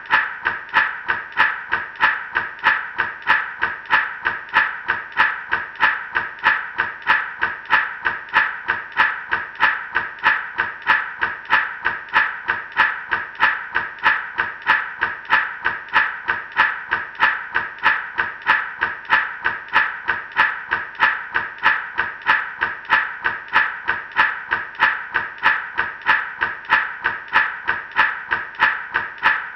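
Gourd rattle shaken in a steady, even rhythm, each stroke a short rattle of seeds or pebbles inside the dry gourd.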